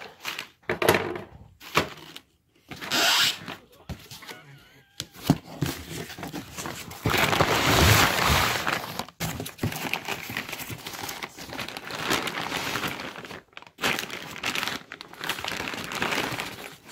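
Brown packing paper crumpling and rustling, with foam packing peanuts shifting, as hands dig through a cardboard shipping box; a few sharp knocks among the rustling.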